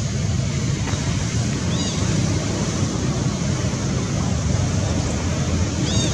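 Steady wind noise buffeting the microphone, a constant low rumble. Two short high chirps come through it, about two seconds in and near the end.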